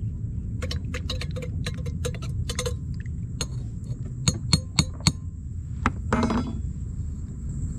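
Metal spoon clinking against a metal camp mug while stirring coffee: a quick run of light clinks, then four sharper taps about four to five seconds in, and a short scrape near the end. A steady low rumble runs underneath.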